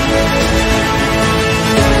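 Background music with held notes; the notes change a little before the end.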